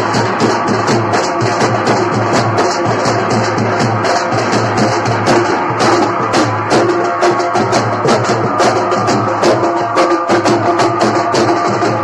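Procession drums played loudly in a fast, steady rhythm, about four strokes a second, with a steady low hum of tones under the beats.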